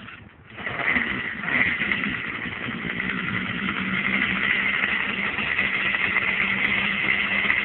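Small weed eater (string trimmer) engine powering a homemade boat, coming in suddenly about half a second in and then running at a steady speed.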